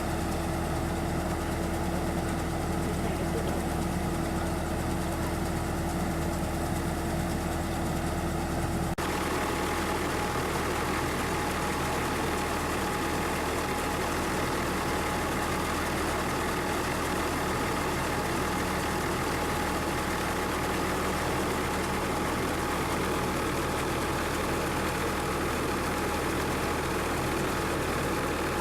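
Combine harvester's diesel engine and machinery running steadily. About nine seconds in, the sound changes abruptly to a noisier mix with a higher whine.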